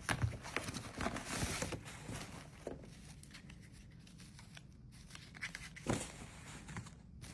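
Packaging being handled during an unboxing, crinkling and tearing. It is busiest in the first two seconds, then quieter with a few sharp rustles and knocks about 3 and 6 seconds in.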